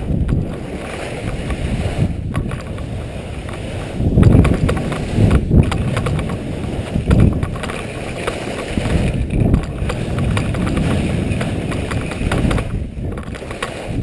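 Skis sliding and scraping over snow during a downhill run, mixed with wind buffeting the action camera's microphone. It is a loud, low rumbling noise that swells and eases in surges every second or two.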